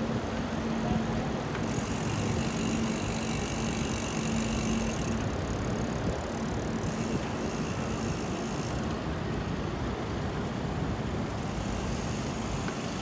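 Wind rushing over the phone's microphone and road noise while riding a bicycle on a city street, with a steady hum through the first five seconds or so.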